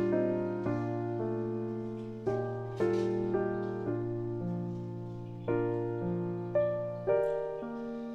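Slow, gentle solo piano music: notes and chords struck every half second or so and left to fade over a held bass note, which changes about seven seconds in.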